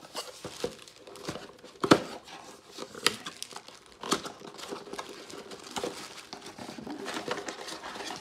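Cardboard box and plastic wrap being handled and opened: crinkling and rustling with irregular taps and knocks, the sharpest about two seconds in.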